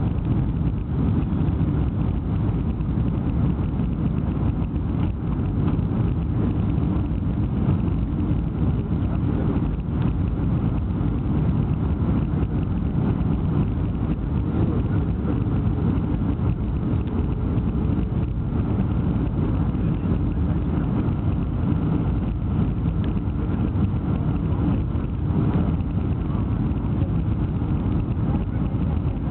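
Steady low rumble of jet airliner cabin noise, the engines and rushing air heard from a window seat as the plane descends to land.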